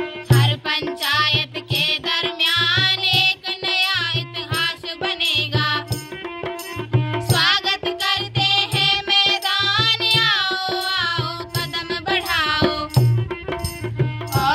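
An Indian song: a gliding sung melody over a steady drone and a repeating low drum beat.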